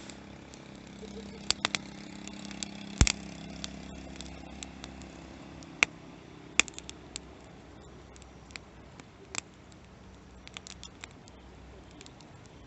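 Wood fire crackling, with scattered sharp pops at irregular intervals; the loudest pop comes about three seconds in. A faint low hum runs under the first half and fades out.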